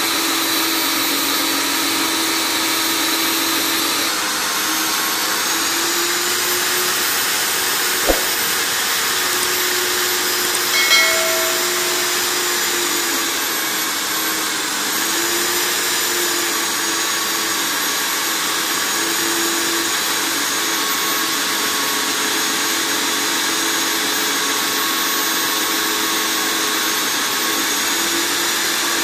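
Stand-mounted electric diamond core drill running steadily, its water-cooled core bit cutting into a concrete floor. The motor whine wavers slightly in pitch as the bit is fed in, with a single sharp click about eight seconds in.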